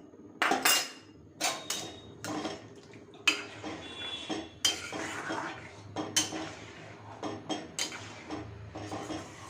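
A cooking spoon stirring in a pan of gravy, clinking and scraping against the pan at irregular intervals as cornflour slurry is mixed in to thicken it.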